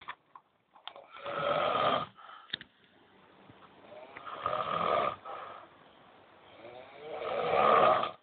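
An old man snoring in his sleep: three long snores about three seconds apart, each stopping abruptly, the last one building up slowly before it stops.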